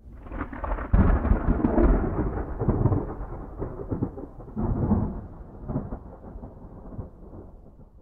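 Low rolling rumble that swells about a second in, swells again near five seconds, and dies away.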